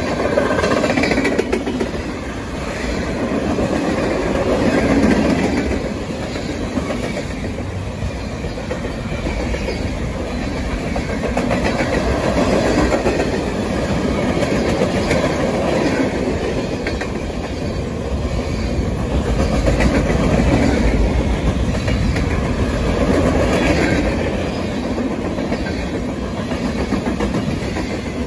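Norfolk Southern freight train of tank cars rolling past close by: steel wheels clicking over the rail joints over a steady rumble that swells and eases every few seconds.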